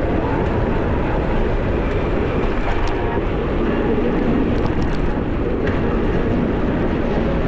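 Steady rush of wind and riding noise on the microphone of a camera carried on a moving bicycle, with a few faint clicks.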